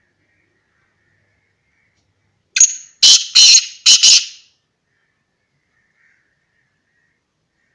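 Black francolin calling once: a harsh, grating phrase of about five notes in under two seconds, starting about two and a half seconds in.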